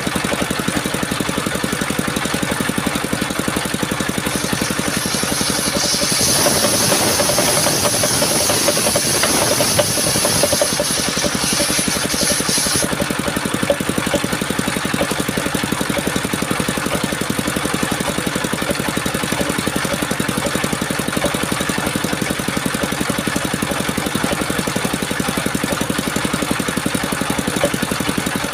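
Engine-driven circular sawmill running steadily. From about five to thirteen seconds in, a louder, higher cutting sound rises over the engine as the blade saws through the coconut trunk, then drops back to the steady running.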